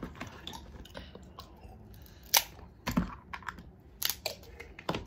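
Eating and table-handling sounds during a seafood meal: a handful of sharp clicks and taps, mostly in the second half, over faint room noise.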